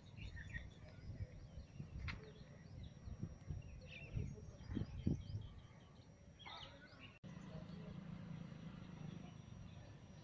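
Faint outdoor ambience: birds chirping in short repeated calls over a steady low rumble, with a few louder knocks around the middle and an instant's dropout about seven seconds in.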